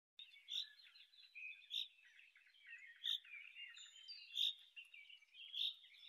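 Birds chirping and singing, several at once and fairly faint, with one sharper chirp standing out about every second and a quarter, five times.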